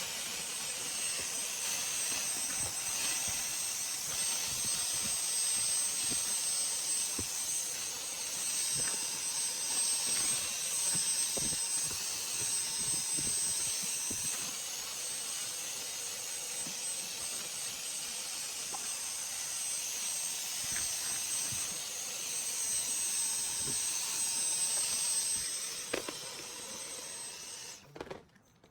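Vacuum cleaner running steadily with a high whine, with scattered light knocks. It switches off about a second before the end.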